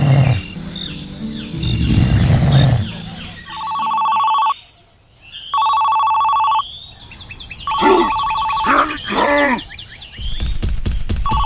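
Telephone ringing: a steady two-tone ring about a second long, sounding four times with short gaps. Chirpy, gliding voice-like sounds come between the later rings.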